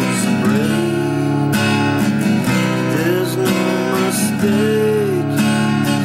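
Acoustic guitar being strummed, chords ringing on under a steady rhythm of strokes.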